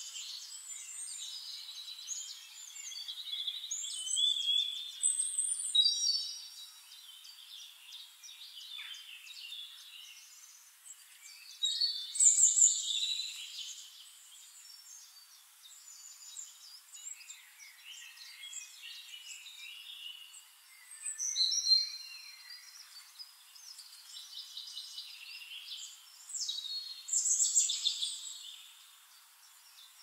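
Songbirds singing: quick, high chirping and trilling phrases, loudest in four bursts spaced several seconds apart, with quieter chirps between them.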